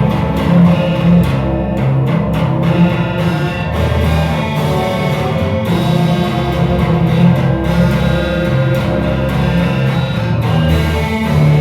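Band music played loud and continuously, led by guitars over a strong bass line, with some percussive strokes.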